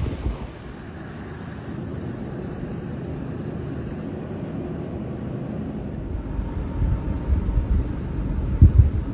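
Wind buffeting the microphone outdoors as a steady low rumble, with a few stronger gusts near the end.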